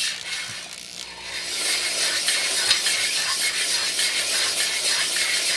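Drill turning a flexible-shaft stone hone at low speed in the cylinder bore of a Briggs & Stratton 14.5 HP OHV engine, the oiled stones rubbing and scraping on the cylinder wall as it is worked up and down to deglaze it. The grinding builds about a second and a half in, then holds steady.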